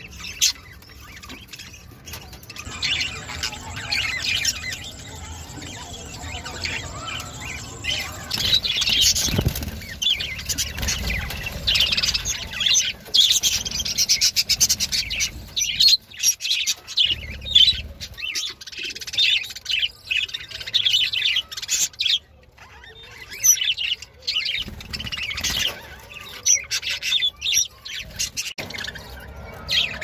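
Budgerigars chirping and chattering in quick, high twitters that break off abruptly a few times and resume.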